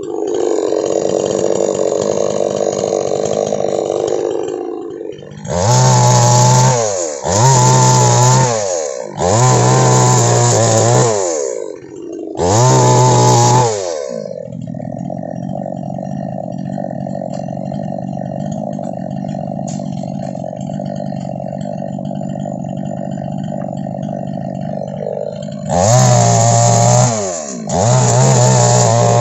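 Two-stroke chainsaw run up to full throttle in four short bursts, each winding down with a falling pitch, then idling steadily for about ten seconds before two more bursts near the end: throttling up to cut through oil palm fronds.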